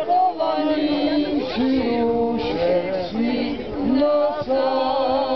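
A group of men and women singing a song in Czech together, holding long notes.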